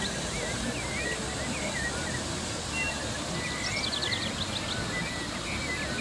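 Stream water rushing over a small rock cascade, a steady hiss, with birds calling over it: scattered chirps throughout and a quick run of high, repeated notes about four seconds in.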